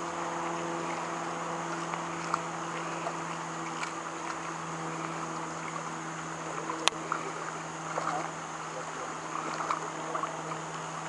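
Creek water running steadily, with a steady low hum under it. A sharp click comes about seven seconds in, followed by a few short irregular sounds.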